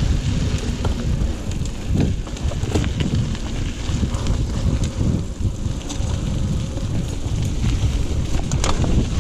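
Wind rumbling on the microphone of a moving bicycle, with many short knocks and rattles from the bike running over rough ground.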